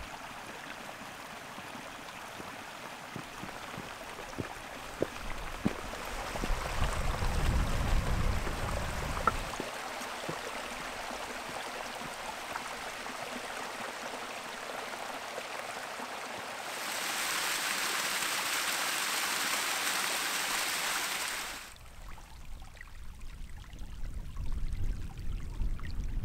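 Mountain beck running over rocks: a steady rush of water that shifts in loudness from shot to shot, fullest and brightest for a few seconds about two-thirds through, then dropping away near the end. A low rumble joins it for a few seconds about a third of the way in.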